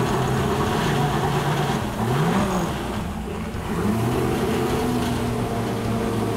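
MerCruiser 5.0-litre V8 marine engine running on an engine dyno, still cold just after start-up. Its speed dips and rises briefly about two seconds in, then steps up and holds a little higher from about four seconds.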